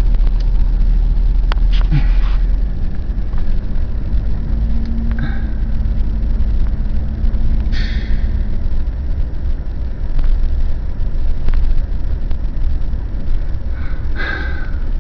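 Vehicle driving slowly, heard from inside the cabin: a steady low rumble, with a faint hum coming in for a few seconds midway.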